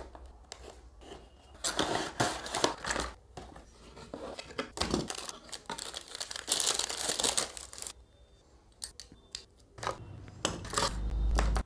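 A cardboard toy box being slit open with a utility knife and its paper and plastic packing handled: irregular bursts of crinkling and tearing, with a few light clicks about three-quarters of the way through.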